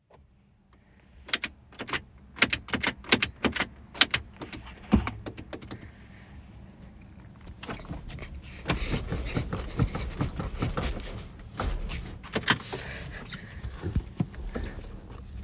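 Keys being handled: a run of sharp metallic clicks, then from about halfway a denser jangling and rattling with a few low knocks.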